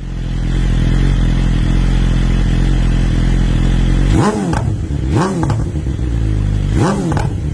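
2022 BMW S1000RR's inline-four engine through an Akrapovič exhaust, idling steadily, then blipped three times in the second half, each a quick rise and fall in revs.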